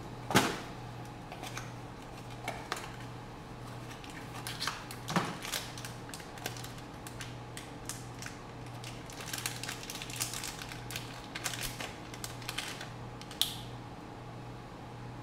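Small hard objects and parts clicking, knocking and rattling as they are handled and sorted through, with one loud knock near the start and a busy run of small clicks in the second half, over a steady low hum.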